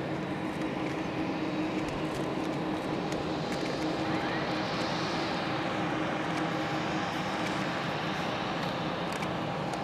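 Boeing 747-400's jet engines running at low power as the airliner rolls out after landing: a steady rumble and hum, with a higher hiss that swells briefly in the middle.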